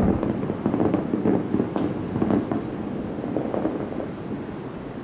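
Aerial firework shells bursting in a rapid volley of bangs, thinning out after about three seconds as the display dies down.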